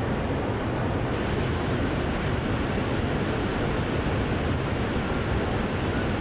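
Steady rush of water pouring over Niagara Falls, an even unbroken noise.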